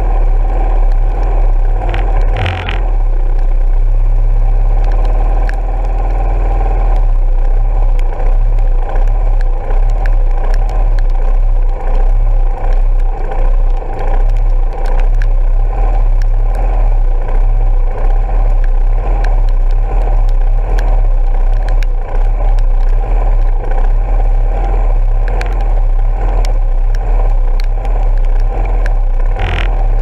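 Yamaha SR400's air-cooled single-cylinder four-stroke engine idling steadily while the bike stands still, heard through a bike-mounted action camera's housing, with scattered sharp ticks.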